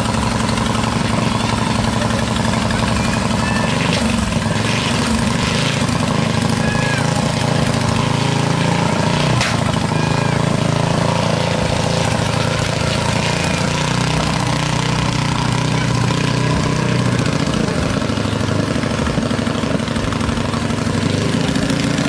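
Kress engine of a small racing outrigger bangka running steadily at idle during an engine test.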